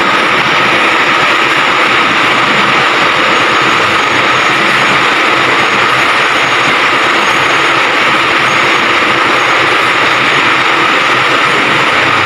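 Steady, loud machinery running, a constant hiss and hum that does not change.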